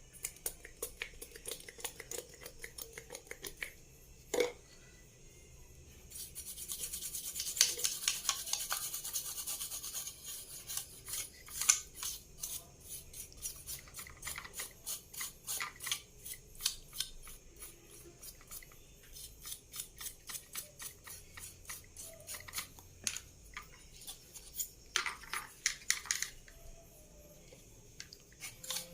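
A brush scrubbing a printed circuit board in quick, rasping strokes, cleaning the board after a solder repair. About six seconds in comes a few seconds of continuous scrubbing; after that the strokes are separate.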